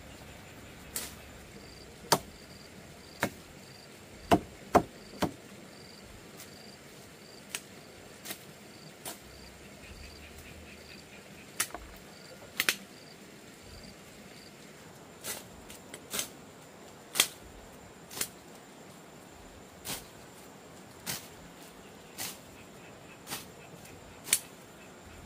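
Chopping with a blade: sharp single knocks, roughly one a second, with a quick cluster of three a few seconds in. A cricket chirps faintly through the first half.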